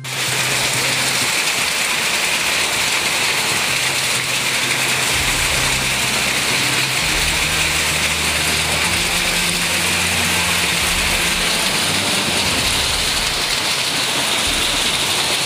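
A storm of heavy rain and hail pouring down and striking hard ground, a dense, steady noise. A low hum comes and goes in the middle.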